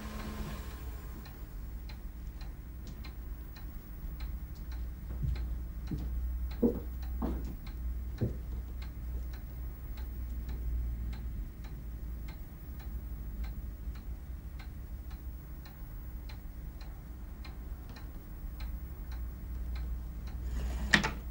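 A clock ticking steadily in a quiet room over a low hum, with a few brief faint sounds about six to eight seconds in.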